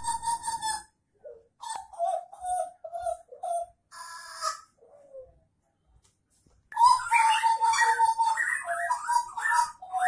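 Caged butcherbird (jagal Papua) singing in clear whistled notes: a short phrase, then a run of short notes, a pause, and from about two-thirds of the way in a continuous, varied song.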